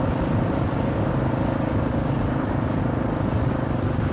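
Kawasaki KLR motorcycle's single-cylinder engine running steadily on the move, mixed with wind rumbling on microphones clipped to an open-face helmet's chin strap.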